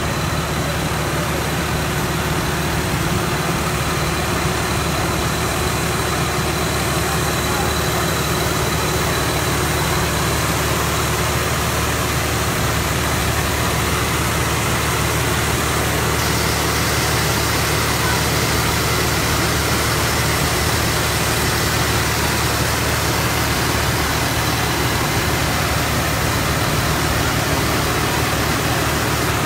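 Combine harvester's diesel engine running steadily at a constant speed, with no changes in pitch or level.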